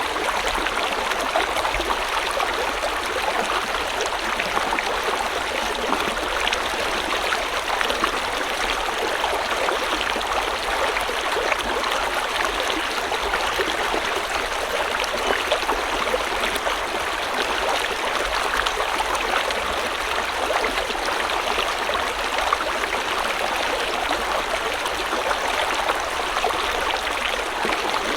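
River water flowing steadily over rocks, an even rushing with a constant fine babble.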